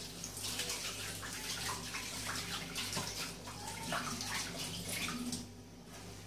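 Water running from a tap and splashing, shutting off about five and a half seconds in.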